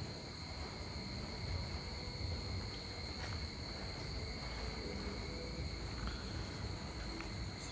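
Steady insect chorus, a continuous high-pitched trill, over a low, even background rumble.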